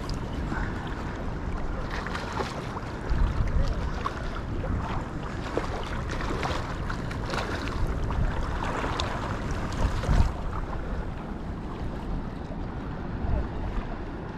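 Wind buffeting the microphone, with water lapping and splashing in shallow water. The rumbling gusts are strongest about three seconds in and again near ten seconds.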